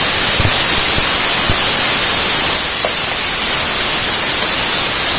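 Chicken strips with onion, garlic and ginger sizzling in hot oil in a pot, a steady loud hiss, while a wooden spoon stirs them. Three soft knocks within the first two seconds.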